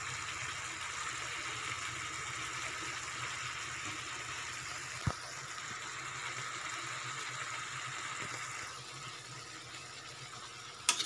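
Steady cooking hiss from a wok of chicken in vinegar-and-soy adobo marinade heating on the stove, with a single tick about halfway through. Right at the end comes a sharp clatter of a spatula against the wok.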